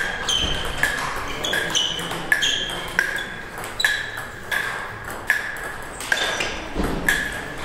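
Table tennis rally: the celluloid-type ball clicking back and forth off the Donic table and the rubber bats, about one to two hits a second, each hit with a short ringing ping.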